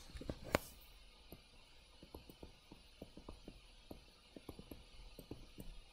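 Faint, irregular ticking of a stylus tapping and writing on a tablet screen, about five ticks a second, with one sharper click about half a second in.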